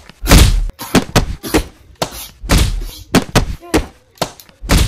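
A rapid, irregular series of loud thuds and bangs, several a second, some of them heavy and booming.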